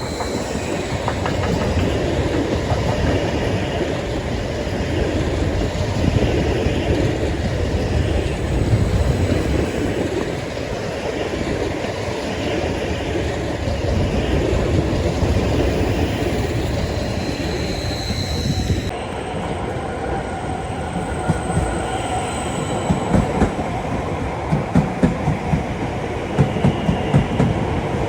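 Train running on the rails, a steady loud rumble of wheels and running gear, with a run of regular clacks from the wheels near the end.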